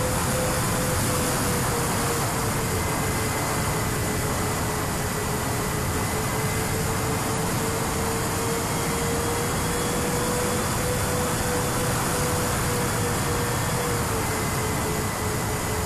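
Twin brushless electric motors and propellers of a Sonicmodell Binary RC plane running at cruise, a steady hum whose pitch drifts slightly up and down, heard from an onboard camera under heavy wind rush.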